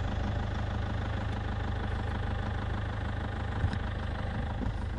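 Van engine idling steadily, a low even hum with a fine, regular pulse.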